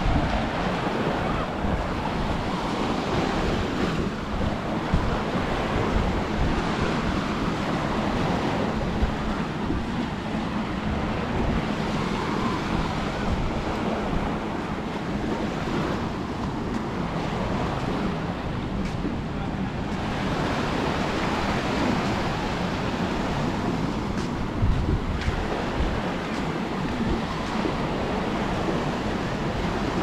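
Small waves breaking and washing up on a sandy beach in a steady wash, with wind buffeting the microphone.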